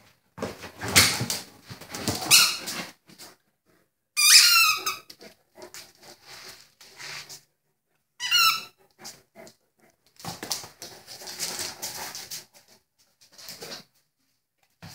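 A Great Dane puppy squeezing a squeaky toy in its jaws: two short bouts of high, wavering squeaks, about 4 and 8 seconds in, between stretches of rustling as it noses and shuffles in its bedding.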